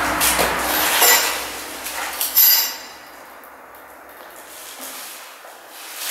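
Handling noise as PPR plastic water pipe and a fitting are worked onto a polyfusion socket welder's heating adapters: rustling and knocking, then one sharp clink with a brief ring about two and a half seconds in, after which it goes quieter.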